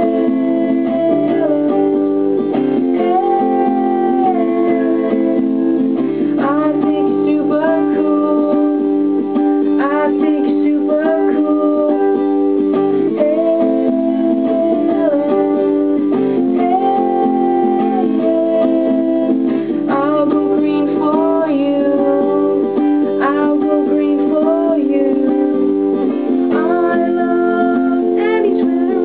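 Acoustic guitar strummed in steady chords, with a voice singing a melody over it.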